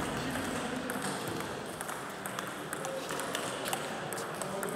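Table tennis balls clicking off bats and tables in irregular pocks from several tables at once, over a murmur of voices in a sports hall.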